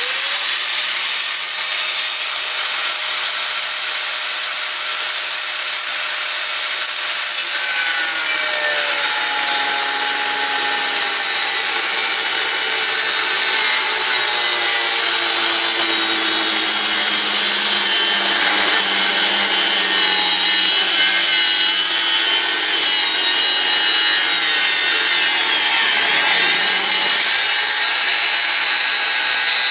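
Electric power tool spinning up to a high whine, then cutting the 5160 spring steel slab along a marked line; from about eight seconds in the pitch drops and wavers as the tool bites into the steel.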